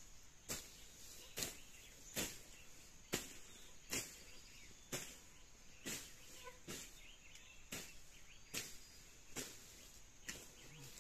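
A blade slashing through grass and weeds in quick regular swishing strokes, about one a second, as ground vegetation is cut back.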